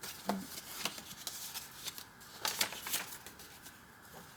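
Paper pages of a thick journal being turned and handled: a series of short, crisp rustles and flaps, the loudest cluster about two and a half to three seconds in.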